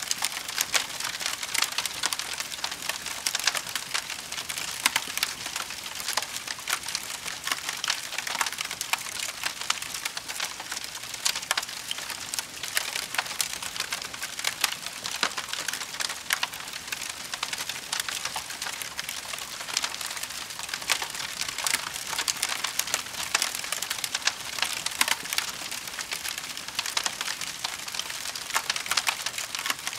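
Campfire crackling and popping: a steady hiss with many sharp, irregular pops and snaps.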